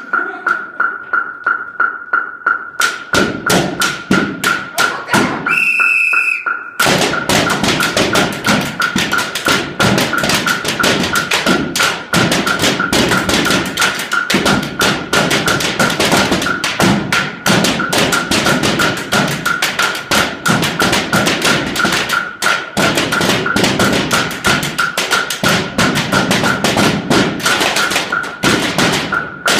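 Marching bass drums struck together in rhythm, sparse strokes at first, then a dense run of quick strokes from about seven seconds in. A steady high beeping pulse keeps time underneath.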